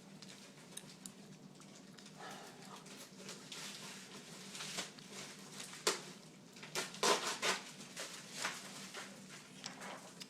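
Handling of a small item and its packaging: rustling with scattered clicks, a sharp knock about six seconds in and a few louder knocks about a second later.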